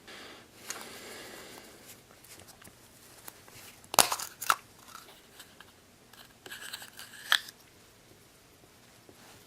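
Hands handling a Choco Egg and its toy parts: wrapper crinkling and rustling, then two sharp clicks a half second apart about four seconds in, and another short crinkle ending in a sharp click a few seconds later.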